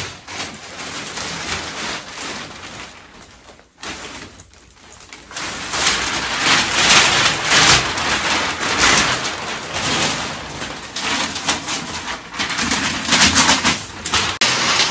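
Christmas wrapping paper being torn and crumpled: a dense crackling rustle that drops away briefly about four seconds in, then comes back louder and busier.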